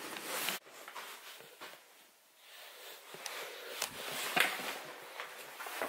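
Scattered footsteps and light knocks on a hard floor in an empty, echoing room, after a brief rustling noise that cuts off suddenly about half a second in.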